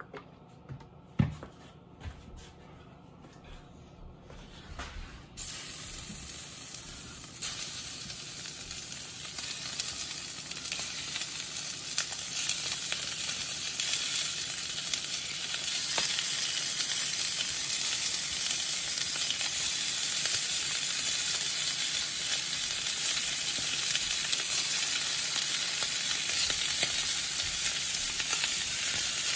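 Raw lamb chunks sizzling as they are laid one by one into hot canola oil in a stainless steel pan. After a few soft knocks, the sizzle starts about five seconds in, grows louder as more pieces go in, then holds steady.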